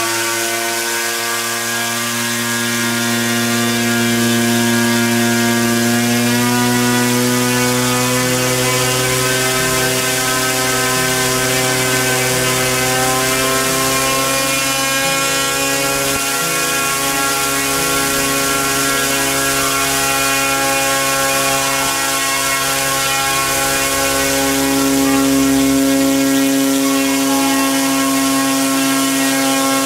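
Turnigy G-46 electric brushless outrunner motor spinning a propeller under power: a steady, loud hum and whine whose pitch shifts slightly a couple of times.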